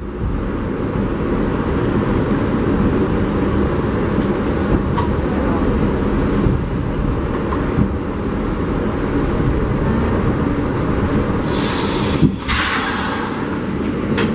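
New York subway train, an R68 car on the G line, running on the rails with a steady rumble and clatter and faint wheel squeal. A burst of air hiss comes about twelve seconds in.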